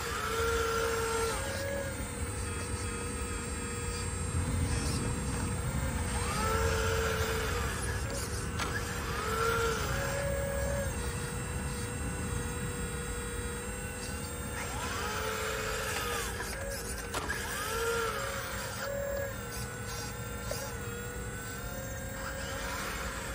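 Remote-control long-boom CAT hydraulic excavator model working: the pump gives a steady whine that swells up in pitch in short arcs about eight times as the boom, arm and bucket are moved.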